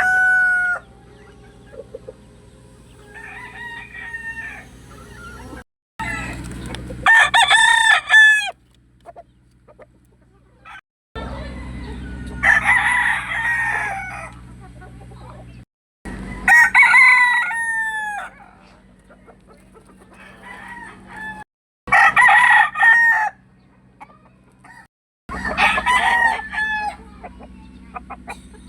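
Roosters crowing again and again, about five loud crows a few seconds apart, with chickens clucking between them. The sound breaks off abruptly several times, as if clips were cut together.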